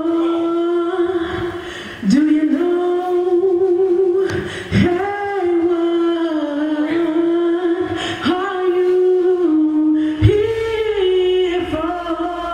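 A woman singing a gospel melody live into a microphone, in long held notes with some vibrato, phrase after phrase of about two to three seconds each.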